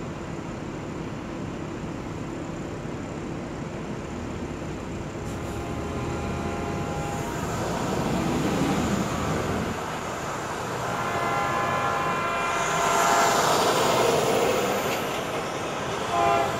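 Horn of an approaching Tri-Rail commuter train sounding the grade-crossing signal: two long blasts a few seconds apart, then a short one near the end. Underneath is a steady rushing noise that swells twice.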